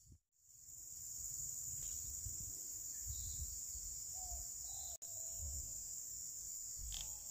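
Steady high-pitched insect chorus buzzing without a break, over a low rumble on the microphone. A faint short call sounds about four to five seconds in, and a faint click near the end.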